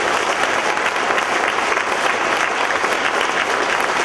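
A large audience applauding steadily, dense clapping from many hands after a speech.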